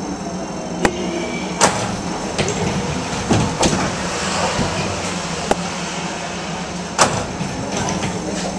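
Steady hum of an Üstra Stadtbahn light-rail car heard from inside, with several sharp clicks and knocks spread through it.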